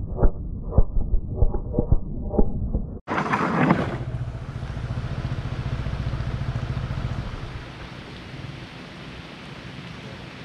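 Aftermath of a motorcycle crash: a run of sharp knocks and scrapes in the first couple of seconds. About three seconds in comes a short loud burst of rustling noise, then a steady low rumble with wind-like noise that drops away a few seconds later.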